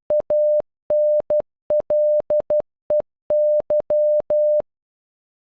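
Electronic Morse code beeps, one steady pitch keyed in dots and dashes, spelling the end of "STANLEY": .- -. .-.. . -.-- (A N L E Y). The beeps stop about four and a half seconds in.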